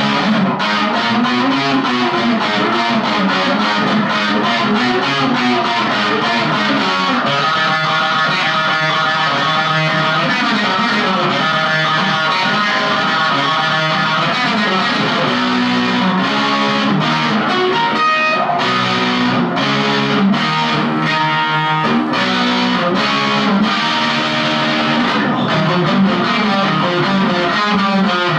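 Electric guitar, a Gibson Les Paul Studio, played through a DigiTech Jackhammer JH1 distortion pedal into a small Marshall MG15CD amp, playing continuous distorted riffs and note runs.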